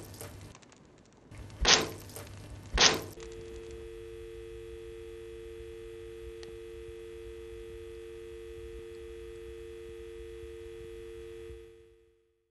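Two sharp knocks, about a second apart, then a telephone dial tone: two low tones held together steadily for about eight seconds before fading out near the end.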